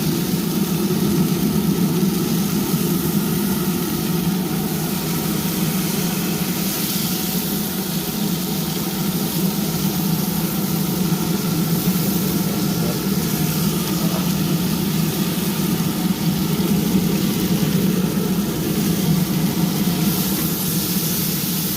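Steady hum of a pellet grill's combustion fan running while the chicken smokes, with a faint airy hiss above it.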